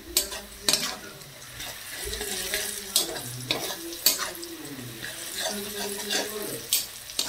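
Sliced onions frying in oil in a kadai while a spatula stirs them: a steady sizzle broken by several sharp scrapes and knocks of the spatula against the pan.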